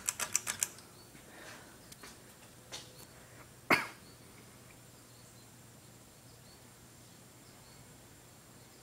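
SMC ceiling fan running on its low speed with a faint steady motor hum. A quick run of clicks comes at the start, and a single short, sharp sound about four seconds in.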